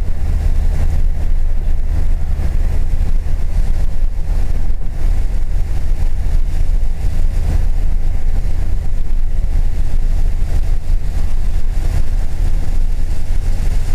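Car interior noise at speed: a steady low drone of engine and road noise, with the hiss of tyres on a wet track.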